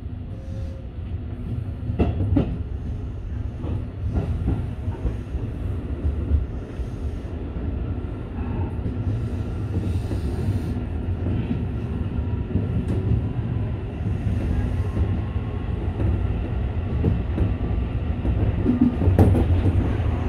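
Tobu 8000 series electric train running along the line, heard from inside the front car: a steady low rumble that grows slowly louder, with a few paired wheel clicks over rail joints.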